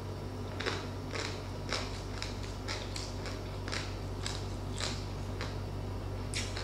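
A person chewing crunchy food with the mouth closed, close to the microphone: crisp crunches about twice a second. The crunch points to the fried skin of crispy pata (deep-fried pork knuckle) being chewed.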